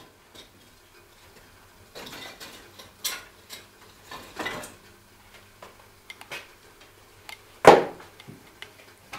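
Kitchen clatter of pots and dishes being handled: scattered knocks and clinks, with one louder clunk about three-quarters of the way through.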